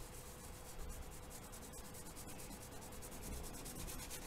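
Kneaded eraser rubbed quickly back and forth over charcoal-covered drawing paper, a faint dry scratchy rubbing as it lifts charcoal to draw light shapes out of the dark ground.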